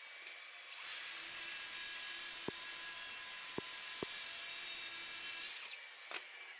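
Festool track saw running along its guide rail, ripping a narrow strip of solid wood, with its dust extractor drawing through the hose. The saw sound is fairly quiet and steady. It comes in about a second in and stops shortly before the end, with three sharp ticks in the middle of the cut.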